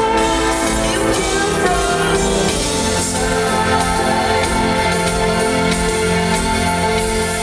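Live band music: held chords from the instruments with a singing voice over them.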